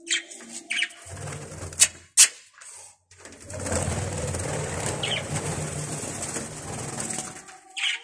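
Budgerigars giving a few short, sharp calls, then a steady rush of wing flapping for about four seconds as a budgie flies about, with one more short call near the end.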